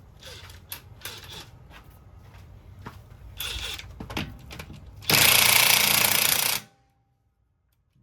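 Impact wrench hammering on a wheel's lug nut for about a second and a half, then cutting off abruptly; it is on its low-power setting. Before it, a few scattered clicks and knocks of tools being handled.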